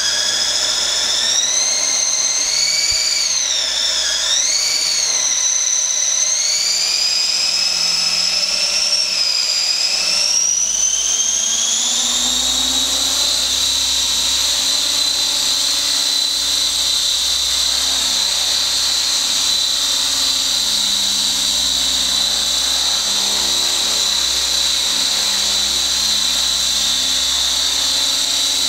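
The brushless motor and rotor of a Skyartec Wasp X3V flybarless electric RC helicopter whining. The pitch climbs and wavers over the first twelve seconds as the rotor spools up and the helicopter lifts off, then holds a steady high whine as it hovers.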